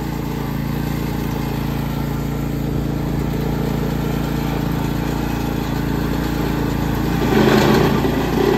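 Husqvarna 52-inch zero-turn mower engine running at a steady idle. About seven seconds in it briefly runs louder and rougher as the mower is driven forward and its front casters climb onto the wooden boards.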